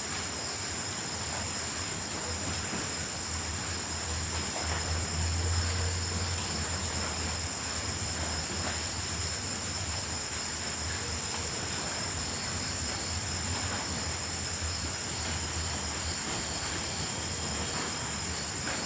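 Crickets calling in a steady high continuous trill, over a faint low rumble that swells briefly a few seconds in.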